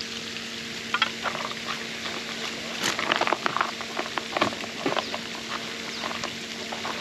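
Hands working damp fishing bait: irregular wet crackles and squishes over a faint steady hum.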